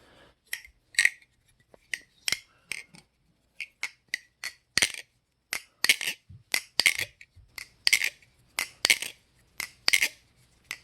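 Replica balisong (butterfly knife) with G10 scales being swung open and shut by hand, its handles, latch and tang pins hitting each other in irregular sharp metallic clicks and clinks, a few a second, busier in the second half.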